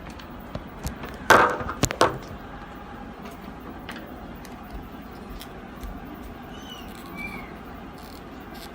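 Plastic cracking and snapping, a quick cluster of sharp cracks about a second and a half in, as a headlight reflector's clip is pried loose from the housing. Fainter clicks follow.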